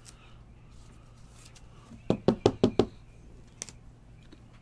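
A quick run of about six knocks on the tabletop, all within under a second, as trading cards in a plastic toploader are handled, followed a second later by one sharp click.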